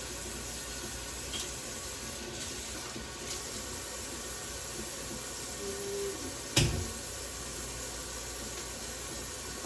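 Kitchen faucet running steadily into the sink, with one sharp knock about two-thirds of the way through.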